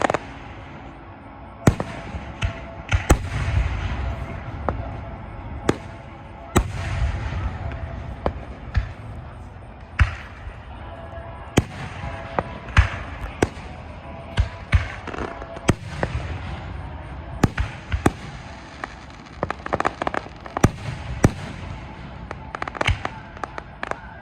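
Aerial fireworks going off: many sharp bangs at irregular intervals, a few seconds apart, with several deeper rumbling booms among them.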